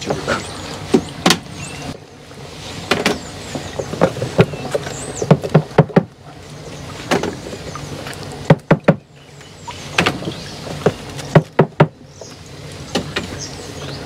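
Irregular sharp knocks and scrapes of wooden sticks against the inside of a plastic barrel steam wax melter as the melted-down old brood comb is worked, some strikes coming in quick clusters, over a steady background hiss.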